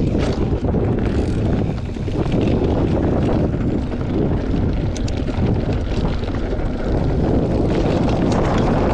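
Wind buffeting the microphone of a camera riding along on a bicycle: a steady, loud rumbling rush with no speech.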